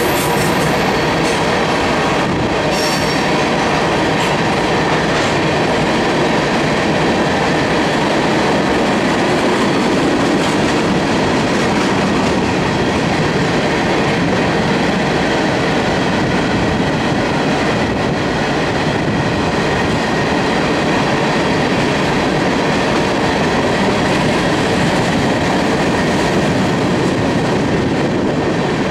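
Freight train of covered hopper cars rolling past at steady speed: a continuous noise of steel wheels on the rails. A faint, high wheel squeal is heard in the first second or so.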